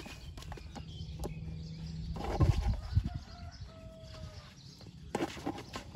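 A baby elephant playing on packed dirt: a few loud dull thuds about two and a half seconds in. They come just after a steady low hum stops, and a faint thin call is heard a little later.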